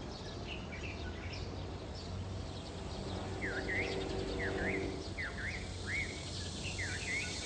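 A bird calling, with repeated short chirps that dip and rise in pitch, about two a second, starting about three seconds in. Under it runs a steady low rumble of distant road traffic.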